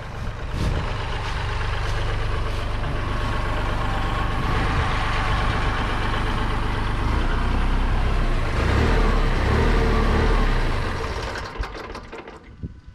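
Kubota L3301 compact tractor's diesel engine running steadily, dropping away sharply near the end.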